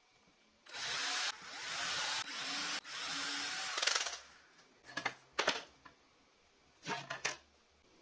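Cordless drill with a twist bit boring a hole through a thin wooden board, running for about three seconds with a few brief breaks. Afterwards come two short clusters of knocks and rustles.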